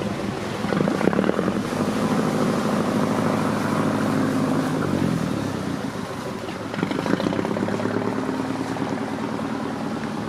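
Motor cruiser's engine running steadily at low speed as the boat passes under a low bridge. Its level dips briefly a little past halfway, then picks up again.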